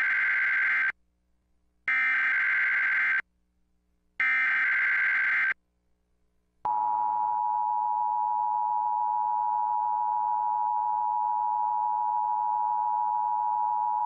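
Emergency Alert System header: three short bursts of screeching SAME digital data about a second apart, then, about six and a half seconds in, the steady two-tone EAS attention signal starts and holds.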